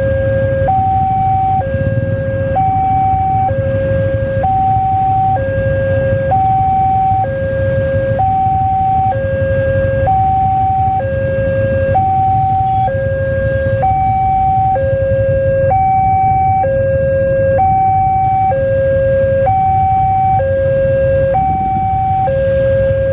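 Railway level-crossing warning alarm sounding its two-tone electronic signal, a low note and a higher note taking turns, each held just under a second, warning that a train is approaching.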